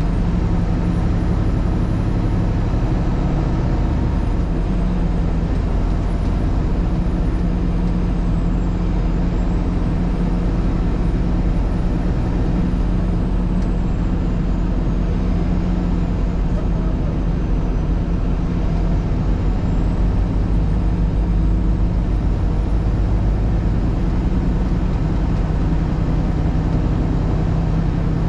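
Steady drone of a vehicle driving along a road: engine hum with a few low tones that drift slightly in pitch, over a constant rush of tyre and road noise.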